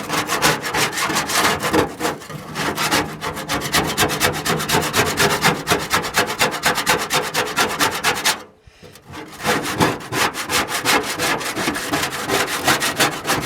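A hand scraper scraping caked grease and rust off the bottom of a grill's drip pan in quick, repeated strokes, with a brief pause about two-thirds of the way through.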